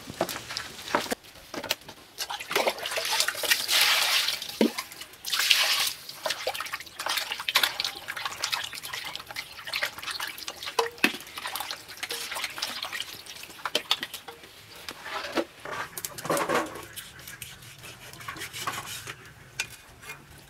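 Hands rubbing and squeezing raw pork in a plastic basin of water, with irregular splashing and dripping.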